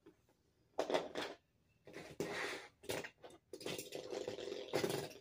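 Two Lego spinning tops launched into a battle arena, with bursts of plastic clattering and rattling, then a steady whir as they spin from about three and a half seconds in.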